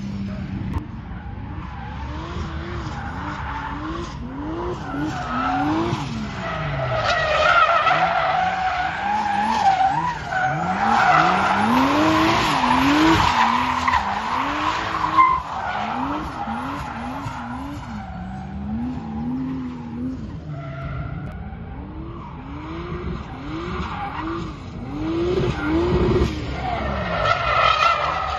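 Turbocharged BMW M50 straight-six in a rear-wheel-drive Mk1 Golf drift car, its revs rising and falling over and over as it drifts. The tyres screech on the tarmac, loudest in the middle stretch.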